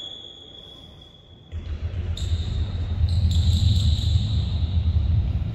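Rapid footfalls on a hard sports-hall floor as an athlete steps quickly through an agility ladder. They start about a second and a half in and come thick and fast, with high squeaky tones over them.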